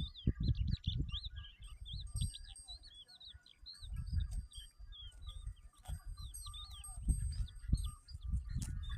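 Small birds chirping and twittering in quick, rising and falling notes, many in a row, over irregular low rumbling bursts that are louder than the birdsong.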